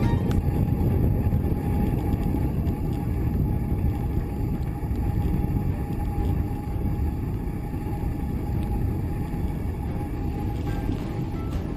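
Vehicle under way on a road: a steady low rumble of engine and road noise, with a faint steady whine above it.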